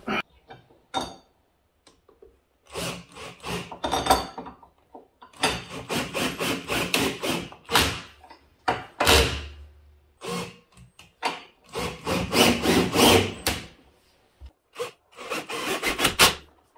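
Handsaw cutting through wood in several bursts of quick back-and-forth strokes with short pauses between them. It is cutting a notch out of the door frame so it fits over the baseboard trim on the floor.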